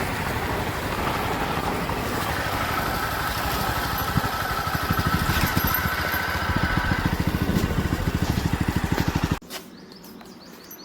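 Jawa 42's single-cylinder engine running at idle just after being started, with a steady, evenly pulsing exhaust beat; the sound cuts off suddenly near the end.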